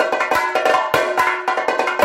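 Two chendas, the Kerala cylindrical stick drums, played together in a fast chenda melam rhythm. Dense, sharp stick strokes land on the tight hide heads over a steady ringing drum pitch.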